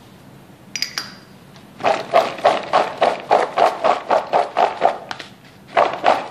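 Raw diced potato cubes rattling and tumbling in a plastic bowl shaken back and forth by hand, to toss them with salt and black pepper. The rattle comes in a quick, even rhythm of about four shakes a second, with a short break a little before the end, and a couple of light clicks come about a second in.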